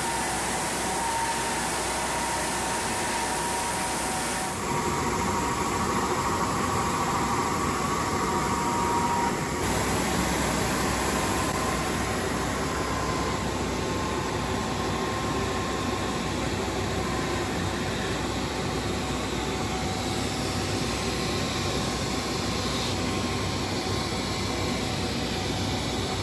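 KÜNDIG combined wide-belt sanding and brushing machine running as solid wood parquet pieces pass through on its feed belt: a steady mechanical rush with a faint steady whine. The sound changes abruptly about four and a half and nine and a half seconds in.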